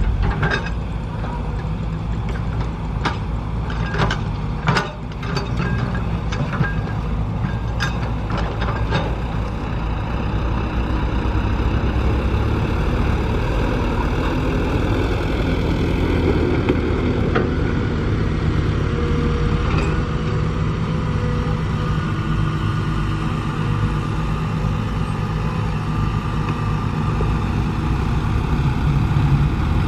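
Mini excavator engine running steadily, with a series of sharp clanks and knocks in the first several seconds and a thin whine for a few seconds around the middle.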